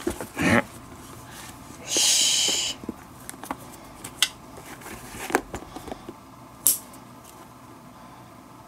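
Leather lace being drawn through the lacing holes of a 1950s Wilson A2151 leather baseball glove, one rasping pull lasting under a second about two seconds in, with light taps of the glove being handled and a few sharp clicks later on.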